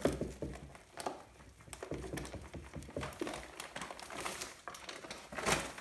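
Paper flour bag crinkling and rustling in irregular crackles as flour is poured from it into a plastic bowl, with a louder rustle of the bag near the end.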